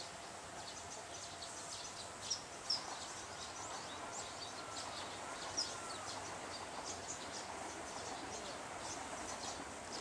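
Small birds chirping over a steady outdoor background. A few sharp, high chirps stand out about two and a half seconds in and again near the middle, among fainter chirps and a couple of soft lower whistles.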